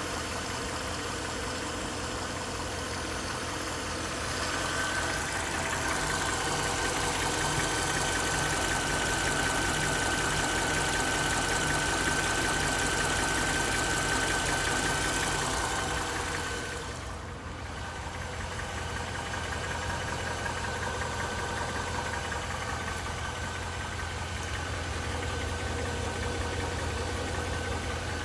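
Mercedes-Benz M273 V8 engine running at idle with a knocking sound, which the owner presents as an engine knock at 72,500 km. It gets louder with a high whine from about five seconds in, dips briefly at about seventeen seconds, then runs on steadily.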